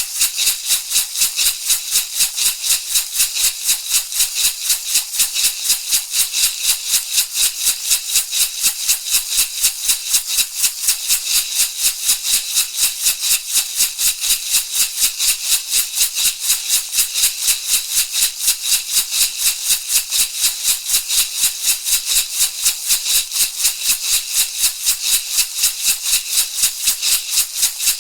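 Shamanic rattle shaken in a steady, even rhythm of about four shakes a second, each shake a bright, hissy rustle of seeds or beads.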